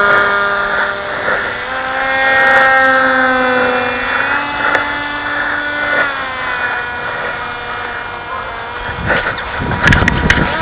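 Motor whine of radio-controlled foam model airplanes in flight, several steady pitched tones that slide up and down with throttle changes. About nine seconds in, a rough rushing noise joins in.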